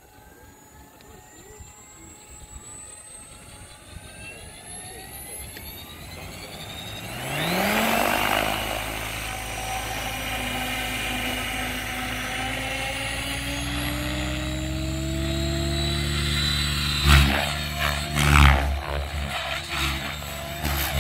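Electric RC helicopter with an Egodrift 4530HS motor spooling up: a faint whine rises slowly, climbs steeply about a third of the way in, then settles into a steady rotor hum as the governor holds headspeed. Near the end come a few loud bursts of rotor noise as the blades take pitch.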